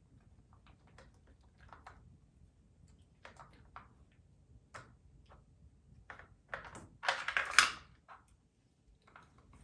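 Plastic Dog Brick treat puzzle clicking and tapping as a puppy noses its sliding and lifting pieces to get at the kibble. Scattered light clicks build to a louder clattering rattle of about a second, a little past halfway.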